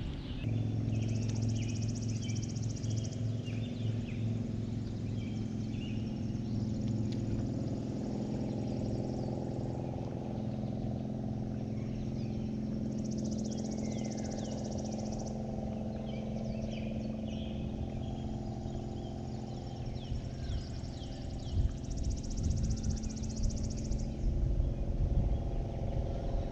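Steady hum of a bow-mounted electric trolling motor, with birds chirping. A high buzz comes in three times for about two seconds each, and a low rumble grows near the end.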